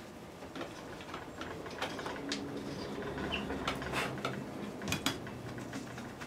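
Tapered hand reamer turning and scraping in a guitar headstock's tuner hole, with small clicks and taps of metal against wood and a couple of sharper clicks about five seconds in. The hole is being opened up a little at a time for a press-fit tuner bushing that is still slightly tight.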